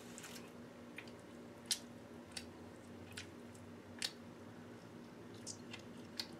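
Faint close-up chewing and mouth sounds of a person eating chicken, with a handful of short, sharp clicks spread irregularly through it.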